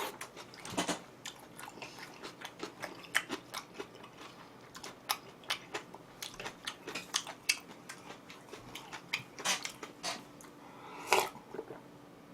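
Close-miked chewing of a mouthful of bok choy and seafood stir-fry: a string of small wet smacks and crunches, with a few louder mouth noises about a second in and near the end.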